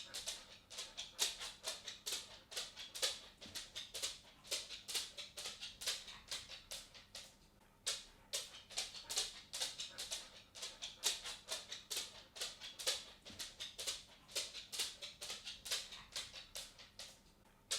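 A cat's footsteps: a quick, uneven run of light ticks and taps, several a second, pausing briefly about seven and a half seconds in and again near the end.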